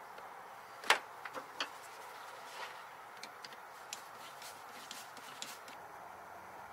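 Scattered light clicks and taps of hand tools and parts being handled in a truck's engine bay during reassembly, the sharpest about a second in, over a faint steady hiss.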